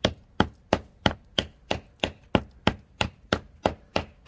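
Club hammer knocking steadily at a crusted, corroded lump lying on a stone paving slab, chipping the corrosion off a buried shell fuse. The knocks come at about three a second, each short and sharp.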